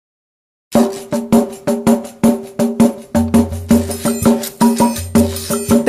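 Silence, then about a second in an upbeat song's instrumental intro starts: quick, even percussion hits over a held chord, with a bass line joining about three seconds in.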